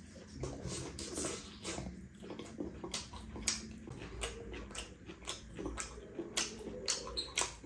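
A person chewing a mouthful of chicken chilli: irregular wet smacking and crunching clicks, a couple each second.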